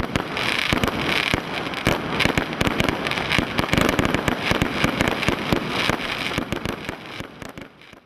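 Aerial fireworks going off: a dense, continuous run of rapid bangs and crackle that dies away at the very end.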